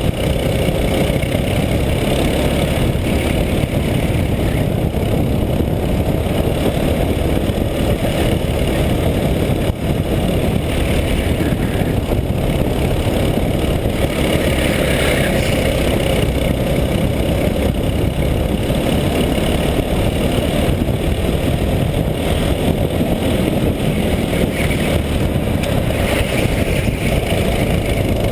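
Go-kart engine running at racing speed, heard from on board the kart, its pitch rising and falling gently through the corners over a constant rush of wind and road noise.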